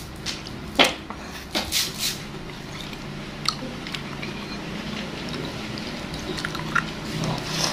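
Close-miked eating sounds: lips smacking and sucking meat off a beef bone, then a metal spoon scraping and clinking in a ceramic soup bowl. There are a few sharp smacks and clicks in the first two seconds, then sparser ones, over a low steady hum.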